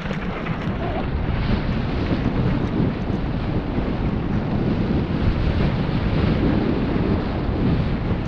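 Wind buffeting the microphone of a mountain biker's camera while riding, a loud, steady rushing rumble.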